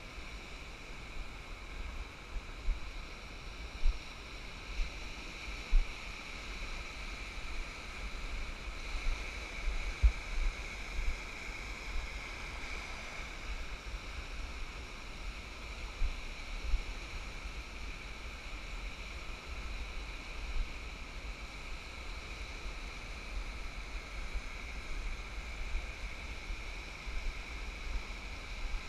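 Surf washing over the shallows of a sandy beach, a steady hiss of foam and water, with a low rumble and a few sharp bumps of wind on the microphone.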